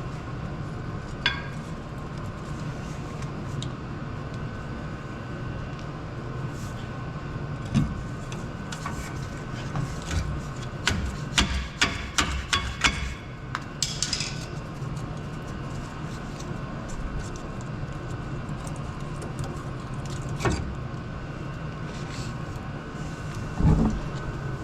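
Scattered sharp metallic clicks and clinks, with a quick run of them near the middle, from worn brake pads and tools being handled at the truck's rear brake, over a steady low hum.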